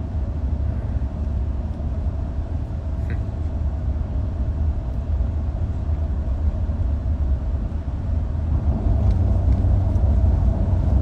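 Steady low rumble of a vehicle heard from inside its cabin, growing a little louder near the end.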